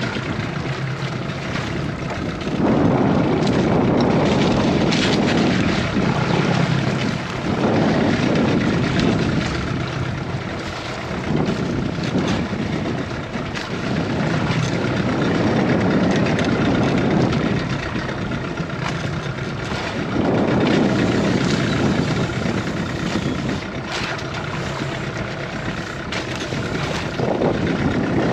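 Boat engine running steadily, its level swelling and easing every few seconds.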